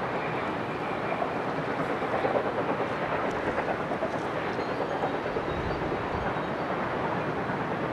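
SBB B 3/4 steam locomotive working uphill with a train, its exhaust beating in rapid chuffs over the rumble of the coaches; it grows a little louder about two seconds in.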